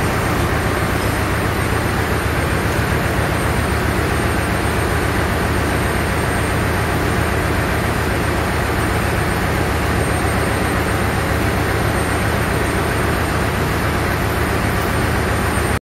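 Steady, loud engine-room machinery noise: a continuous din with a deep hum from running shipboard machinery, cutting off abruptly near the end.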